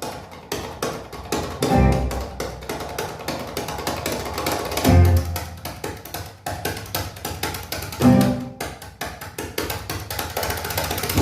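Music played through a stereo pair of IKEA Eneby speakers: an instrumental passage with quick, steady percussion ticks, string-like tones and deep bass notes about every three seconds.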